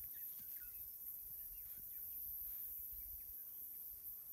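Faint bush ambience: a steady high-pitched insect drone with scattered short, faint bird chirps.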